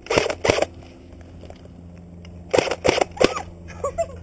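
Airsoft guns firing: sharp single pops, a few right at the start and a few more about two and a half to three seconds in.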